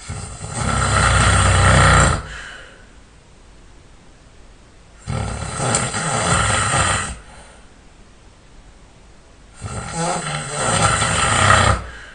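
A person snoring loudly: three snores of about two seconds each, one every five seconds or so, with quiet breathing gaps between them.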